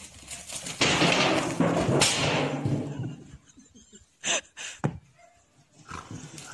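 A sheep charging a man who shields himself with a large metal basin: about two seconds of loud scuffling and commotion, then two sharp knocks about half a second apart as the sheep butts the basin.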